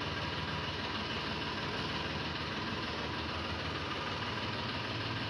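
Eicher 380 Super Plus tractor's diesel engine idling steadily.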